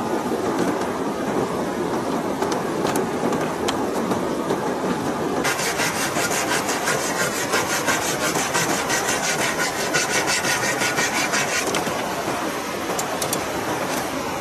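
Steady rush of river water, with a fast, dense rasping from about five seconds in until about twelve seconds: a blade working through a green bamboo pole.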